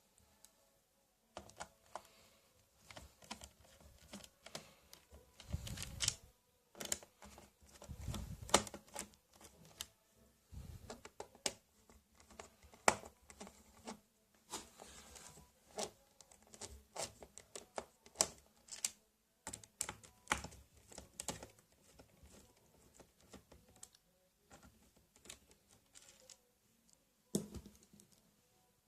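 Irregular light clicks and taps of hands working on a ThinkPad laptop, with a few dull thumps as it is handled.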